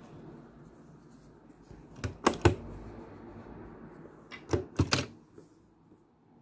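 Short sharp clicks and taps as fabric strips are handled and positioned on a sewing machine's bed under the presser foot: a group of three about two seconds in and another of four around four and a half seconds in, with the machine not yet running.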